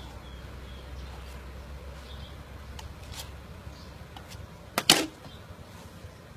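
A knife shaving the husk of a young green coconut on a wooden chopping block: light scraping clicks, then two sharp knocks in quick succession about five seconds in.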